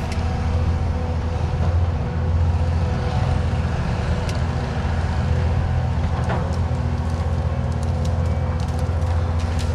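Diesel engine of a Cat tracked skid steer running steadily with a low, even drone. A few light clicks near the end.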